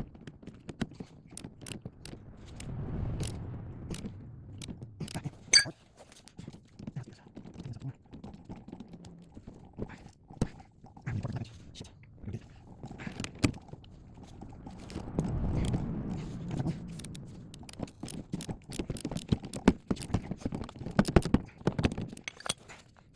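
Irregular clicks, knocks and scrapes of metal tools and car suspension parts being handled, with one sharper knock about five seconds in.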